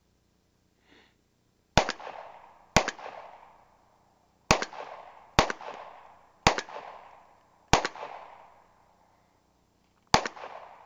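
Seven gunshots at uneven intervals. Each is a sharp crack that trails off in an echo lasting about a second. Two come close together about two seconds in, four follow over the next few seconds, and the last is near the end.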